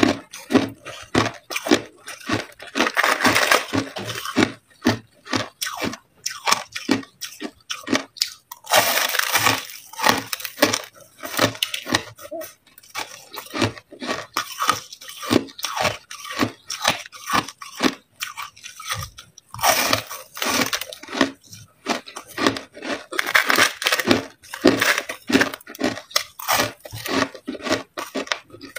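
Crushed white ice being bitten and chewed: a continual run of sharp crunches, thickening into dense crunching in several stretches of a second or two.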